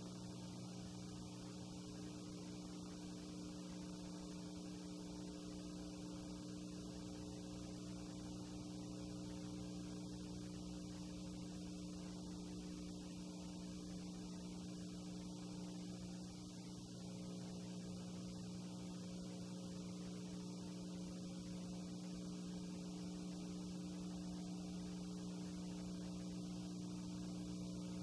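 Steady electrical mains hum, a cluster of steady low tones under a faint hiss, with no other sound: the empty soundtrack of silent 8 mm film copied to tape.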